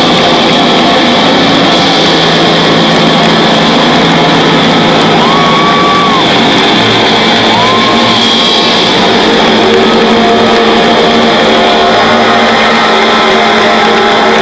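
Live rock band with electric guitars, drums and keyboards playing loudly and without a break, heard from within the crowd in a large hall.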